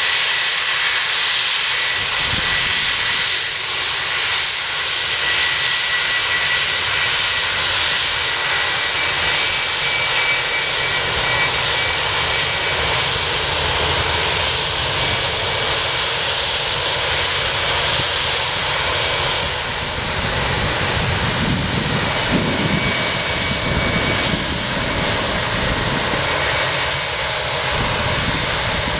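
Airliner jet engines running, a steady high whine over a continuous roar, with a deeper rumble building around twenty seconds in.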